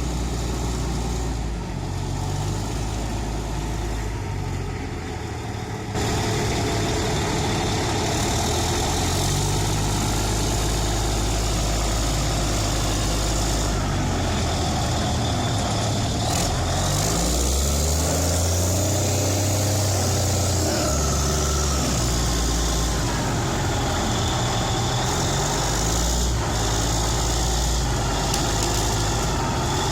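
Caterpillar 992C wheel loader's diesel engine running, getting louder about six seconds in, with the engine speed rising and falling around the middle as it works its way onto a lowboy trailer.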